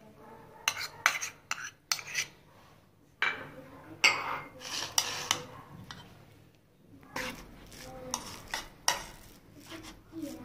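Steel spoon stirring boiled potato chunks and greens in a bowl: irregular clinks, taps and scrapes of the spoon against the bowl, coming in clusters.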